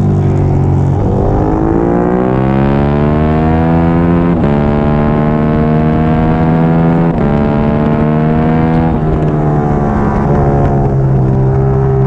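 Triumph Daytona 675R's 675 cc inline three-cylinder engine under hard acceleration, the pitch climbing through the revs with two quick upshifts about four and seven seconds in, then the throttle rolled off and the revs dropping about nine seconds in before it picks up again near the end.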